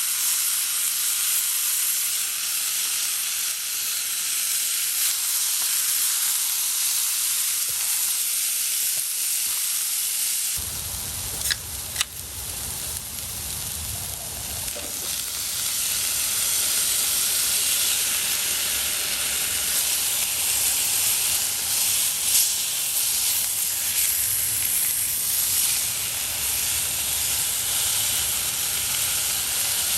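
Food sizzling steadily on a hot camp grill, a continuous hiss of cooking fat, with two sharp taps near the middle.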